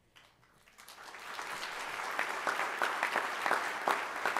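Audience applauding: after a brief hush, many hands start clapping about a second in and build to steady applause.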